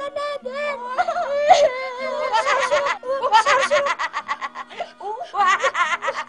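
High-pitched voices laughing and giggling in quick runs of short bursts, with squeals and gliding cries in between.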